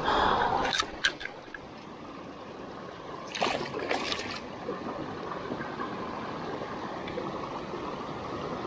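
Mountain stream water running and trickling, with a louder splashing stretch at the start and another about halfway through.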